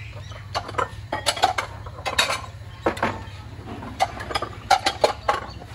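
Metal ladle and utensils clinking against a stainless steel stockpot and bowls as noodle broth is ladled out: a quick irregular series of sharp clinks.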